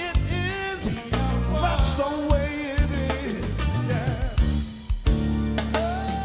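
A song playing: a singing voice with vibrato over drums and bass.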